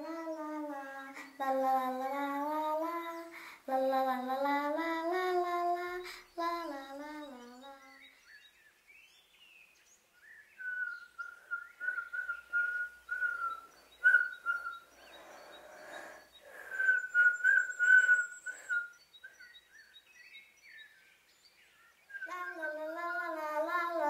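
A child's voice sings a tune in short phrases, then someone whistles for several seconds, mostly on one high note with short breaks, over light rustling and clicks; the child's singing comes back near the end.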